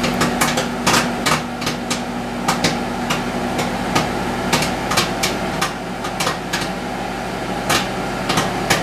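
Microwave popcorn popping in a running Sharp Carousel II microwave oven: irregular sharp pops, about two or three a second, over the oven's steady low hum.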